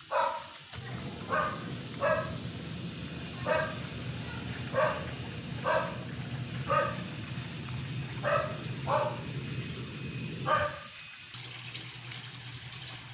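A dog barking in single barks, about ten of them at uneven intervals roughly a second apart, over a steady sound of running water.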